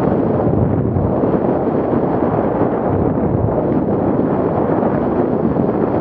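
Loud, steady rush of wind buffeting an action camera's microphone on a mountain bike riding fast down a dirt trail, mixed with the rumble of the ride over the ground.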